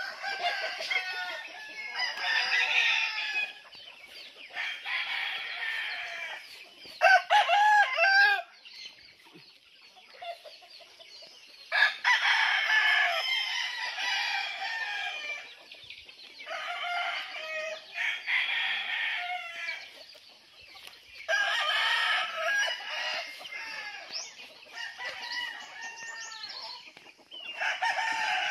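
Several backyard roosters crowing in turn, a long crow every few seconds, sometimes overlapping, amid a flock of free-ranging chickens.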